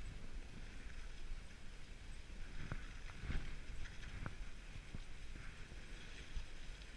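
Dog sled running over packed snow: a steady rush and rumble from the runners, with the patter of the sled dogs' paws. A few sharp knocks come around the middle as the sled jolts along the trail.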